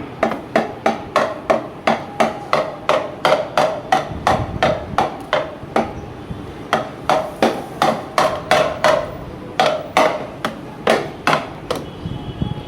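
Hammering: a long run of quick, even strikes, about three a second, each with a short ring, with a few brief pauses between runs.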